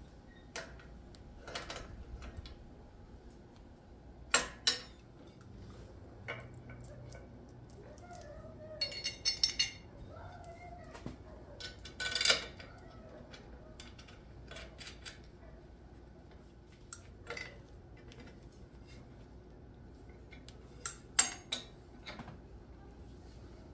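Steel parts, bolts and an adjustable wrench clinking and knocking as a sweep is bolted onto an S-tine. The clicks are scattered and sharp, with a short jingling rattle about nine seconds in.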